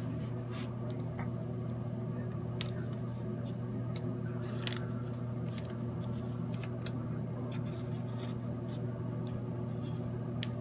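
Scissors clicking and scraping as they push loose keef into a pile, a scattering of light clicks with the sharpest about halfway through. A steady low hum runs underneath.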